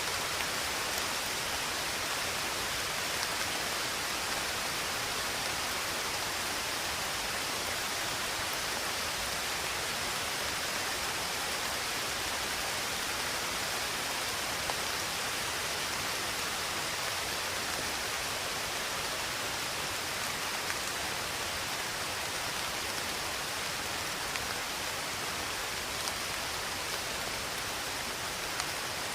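Steady rain falling: an even, continuous hiss with a few slightly louder drops here and there.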